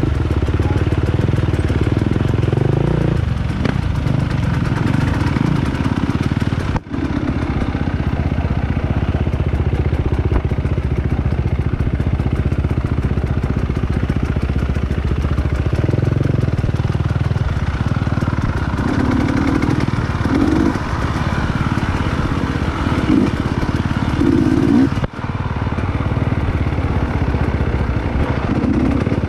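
Trail motorcycle engine running loud and steady, with the revs rising and falling as it rides a muddy off-road trail.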